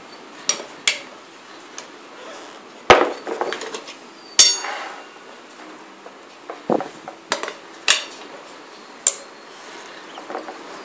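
Beadmaster bead-breaker tyre levers knocking and clinking while being worked on a dual-sport motorcycle tyre. About a dozen sharp knocks come at irregular intervals; the loudest, about four and a half seconds in, rings briefly.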